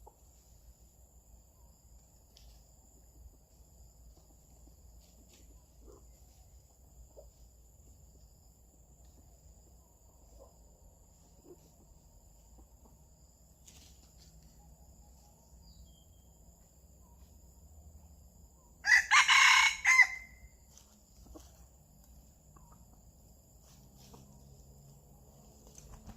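A junglefowl cock crows once, loudly, about two-thirds of the way in. The call lasts a little over a second, over a quiet forest background with a steady high-pitched insect-like whine.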